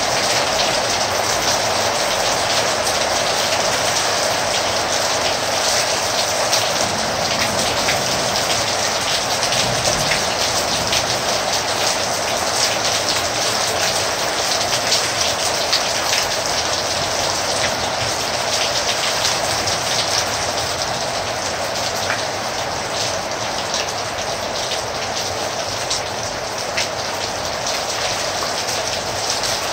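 Heavy rain falling steadily: a dense, even hiss of countless drops striking, with no lull or change.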